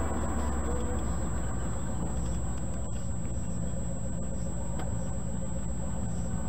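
1969 Corvette C3's V8 engine and road noise heard from inside the car, a steady low hum as the car slows down.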